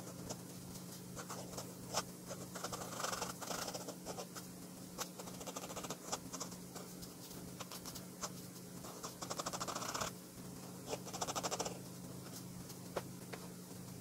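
Flex-nib fountain pen scratching on sketchbook paper: three runs of quick hatching strokes, with single ticks of the nib touching down between them.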